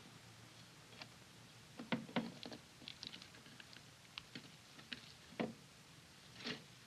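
Hands kneading and shaping raw ground meat into a meatloaf on a plate: faint, irregular soft squishes and pats, a few short ones every second or so.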